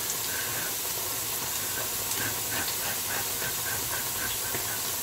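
Churros deep-frying in a pan of hot oil: a steady sizzling hiss with small, irregular bubbling pops, over a low steady hum.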